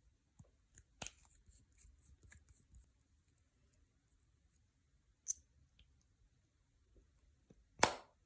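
A few sharp clicks and a run of small light ticks from handling small hard objects, with one louder short snap near the end.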